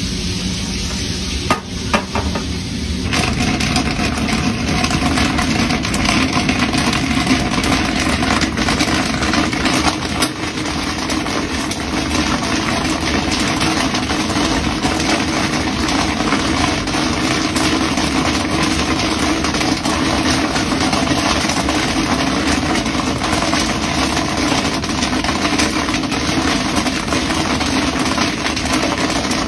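Commercial popcorn machine running, a steady motor hum under a crackling, sizzling noise from the kettle. A couple of sharp knocks come about two seconds in as the kettle is tipped, and the sound grows fuller a second later.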